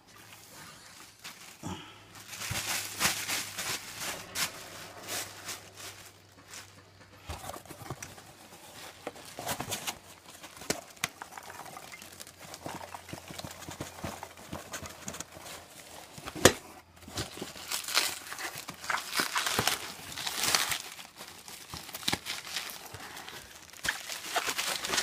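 Packaging being handled: irregular crinkling and rustling with scattered clicks and knocks, and one sharp knock about sixteen seconds in.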